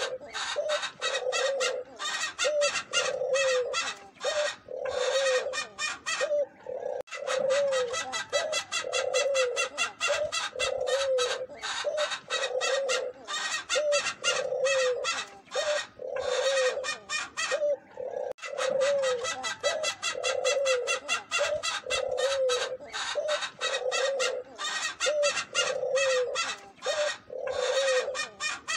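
Collared doves cooing: soft, low coo notes, repeated about one or two a second with brief pauses, over a steady high-pitched twittering.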